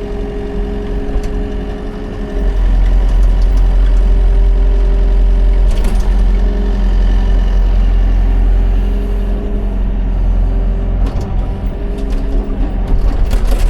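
Excavator diesel engine running steadily, getting louder about two and a half seconds in, with a few sharp knocks, one near the middle and a cluster near the end.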